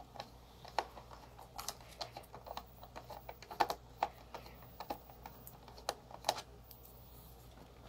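Phillips screwdriver backing a screw out of a Roomba's plastic battery cover: faint, irregular sharp clicks and ticks of the tool working the screw, thinning out near the end.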